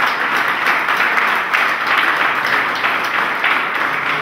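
Audience applauding: many people clapping at once, a loud, steady patter of hands.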